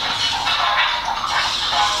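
Music from a Meccanoid robot's small built-in speaker while it dances, thin and with no bass.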